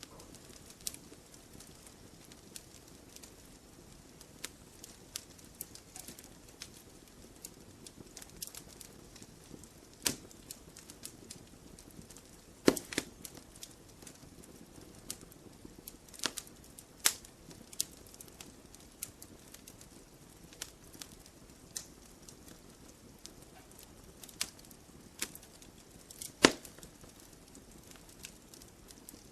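Burning logs in a campfire crackling: irregular sharp snaps and pops over a low steady hiss. A few snaps stand out, the loudest about halfway through and near the end.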